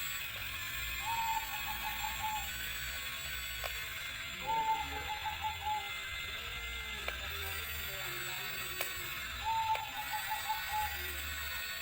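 Electronic beeping from a toy RC construction vehicle: three short runs of rapid beeps, over a steady low hum and hiss, with a few faint clicks.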